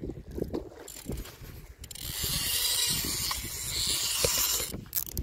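Spinning reel's drag buzzing steadily for about three seconds, from about two seconds in, as a hooked carp runs and strips line off the spool. Before it, handling knocks and rumble from the rod and reel in hand.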